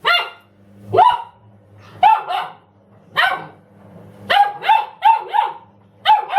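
Young Doberman barking repeatedly: about ten sharp barks, some single and some in quick runs of two to four, over a low steady hum.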